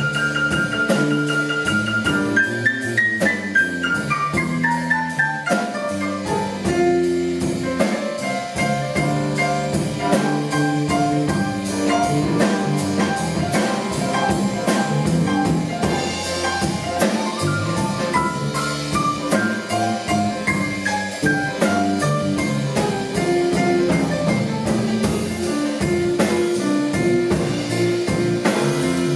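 Live jazz combo: a grand piano takes the lead over drum kit and electric bass. The piano plays a high held note at first, then a fast run stepping down through the keyboard, and another descending run about two-thirds of the way through.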